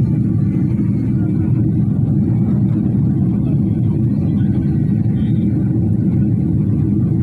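Steady low cabin rumble of a Boeing 777 in flight: engine noise and rushing air, heard from a window seat over the wing, even in loudness throughout.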